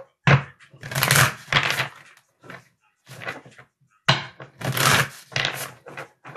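Deck of tarot cards being shuffled by hand over a wooden table: two long bursts of rapid card flicking, one about a second in and another just after four seconds in, with a few short rustles between.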